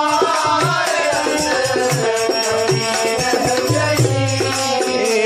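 Hindi devotional bhajan music: a melody over tabla and shaker percussion.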